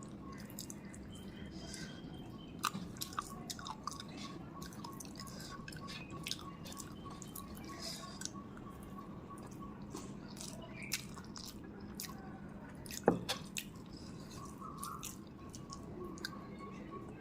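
Close-up eating sounds of rice, fried chicken and chicken curry: soft wet chewing and small mouth clicks, scattered irregularly, with one louder knock about thirteen seconds in. A faint steady hum runs underneath.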